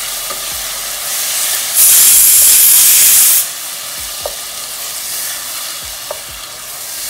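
Chopped tomatoes and onions sizzling in hot oil in a pan while being stirred with a wooden spatula. The sizzle gets much louder for about a second and a half a couple of seconds in, and the spatula knocks lightly against the pan a few times later.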